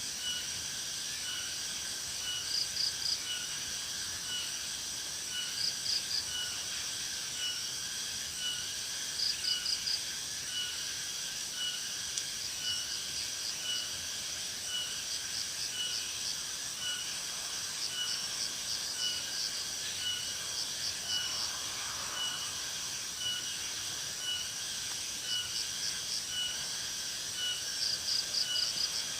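Insects chirring steadily, with a high pip repeating about every three-quarters of a second and short clicking trills every few seconds.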